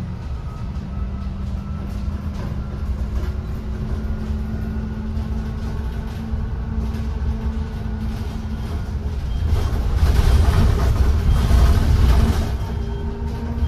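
Bus in motion: a steady low rumble of road noise with a steady hum, swelling louder for a few seconds near the end.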